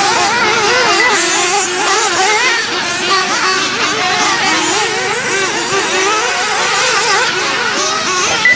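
Several 1/8-scale nitro off-road RC buggies racing, their small high-revving engines whining and rising and falling in pitch as they accelerate and brake, overlapping one another.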